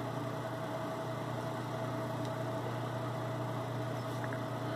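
Machine tool running steadily with no cut, a constant motor hum with a faint steady whine above it.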